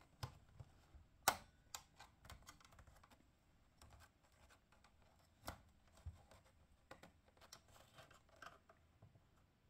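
Faint clicks and light scraping of plastic as the snap-lock clips and housing of a 2012 Chevrolet Traverse instrument cluster are worked by hand, with a sharper click about a second in and another about halfway through.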